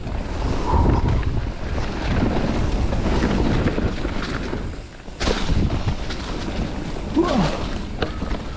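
Wind rushing over the camera microphone and the rattle and rumble of a mountain bike rolling fast down a dirt trail, its tyres on packed soil and dry leaves. About five seconds in the noise drops for a moment, then a sharp knock as the bike lands off a jump.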